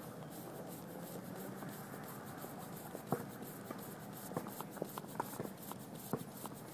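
Scattered light knocks and clacks on a plastic sport-tile court, against a faint steady hiss; the sharpest knock comes about three seconds in.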